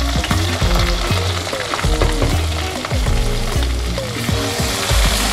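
Sliced onions and whole spices frying in hot oil in an aluminium pot, sizzling steadily while a wooden spoon stirs them and ginger-garlic paste is added.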